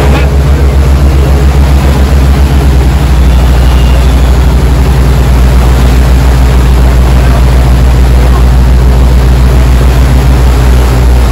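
Tour boat's engine running steadily under way, a loud, deep drone, with propeller wash churning at the stern.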